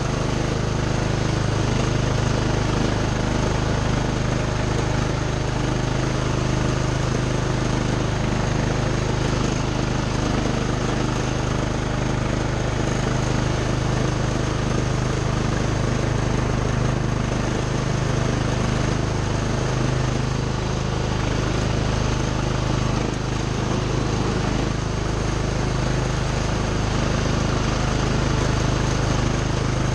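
Craftsman lawn tractor's engine running steadily at an even speed, with no change in pitch or level.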